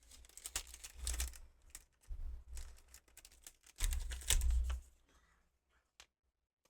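Pokémon trading cards being handled and flipped through on a desk: a run of quick clicks, slides and soft thumps that stops about five seconds in, with one more click near the end.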